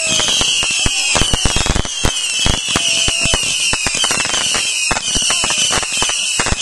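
Fireworks going off: a dense, rapid run of crackling pops and bangs, with high whistles that fall in pitch again and again over it.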